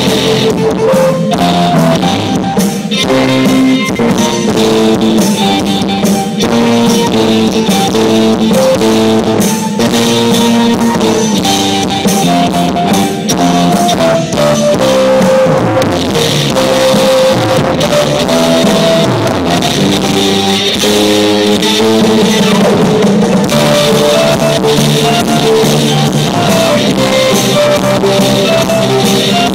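Live pop band playing on stage, electric guitar and drum kit over a steady beat, recorded loud on a cheap phone from the audience.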